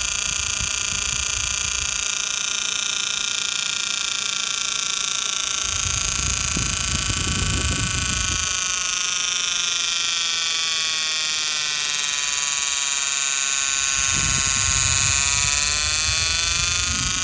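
CPU cooler fan in a prebuilt PC making a loud, scary noise because a sticker left on the fan is catching it as it spins. The noise is steady, its pitch sagging and rising again near the end, with low rumbles now and then.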